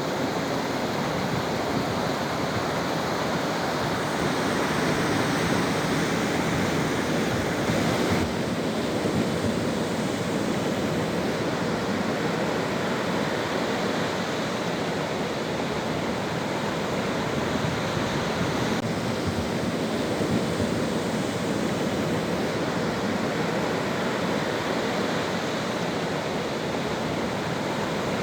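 Sea waves washing in continuously, a steady rushing surf with a slight swell in loudness now and then.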